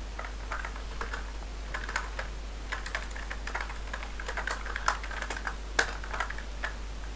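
Typing on a computer keyboard: irregular key clicks, a few a second, with a couple of louder strokes a little past the middle.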